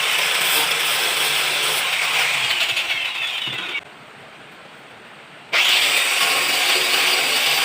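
An electric power tool running steadily with a low hum. About halfway it drops away abruptly for a couple of seconds, then comes back at full level.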